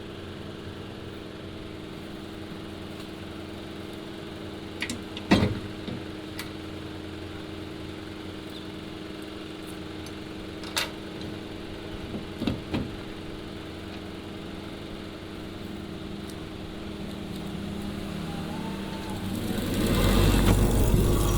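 A small electric motor humming steadily, with a few sharp clicks and knocks in the middle and a louder, rougher noise building up near the end.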